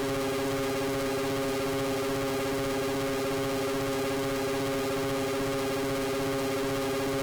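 Electronic noise-music drone: several low held tones layered over a hiss, unchanging.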